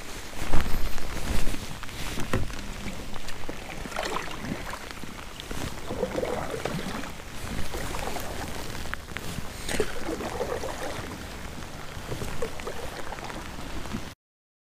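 Kayak paddle strokes swishing and splashing in the water every couple of seconds, with a few knocks from handling gear on the kayak about a second in. The sound cuts off suddenly near the end.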